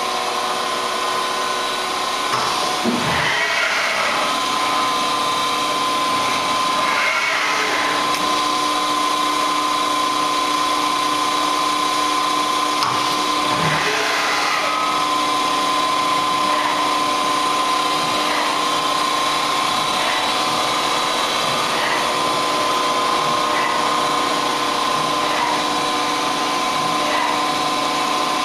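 Okuma LC20 CNC lathe running with a steady machine whine of several held tones. A few brief louder mechanical sounds break through about 3, 7 and 14 seconds in.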